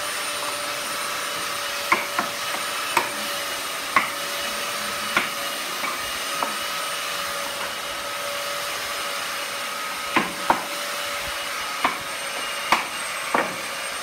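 About ten sharp, irregularly spaced hammer taps on a wooden door frame, as a carpenter works along its edge with a hand tool. Under them a machine runs with a steady hum and a high tone.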